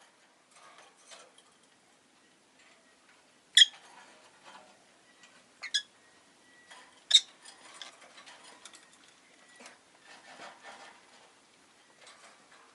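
Rosy-faced lovebird giving short, sharp high chirps, three loud ones a second or two apart (the middle one doubled), between soft clicking and scratching sounds.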